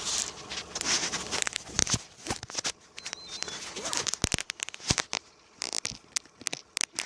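Close-up handling noise: irregular scratches, rustles and sharp clicks, as a small bass is taken off a crankbait's hooks.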